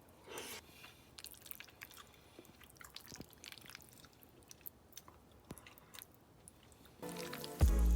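Quiet close-up chewing and eating sounds, soft and irregular with many small clicks. Music comes back in about seven seconds in.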